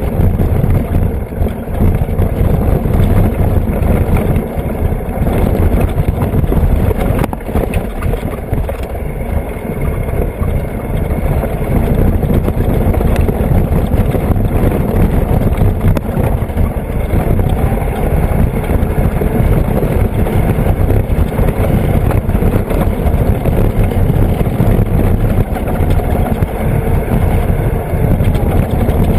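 Off-road vehicle driving along a dirt road, heard from a camera on its hood: a steady, loud low rumble of engine and tyres on dirt that runs on without a break.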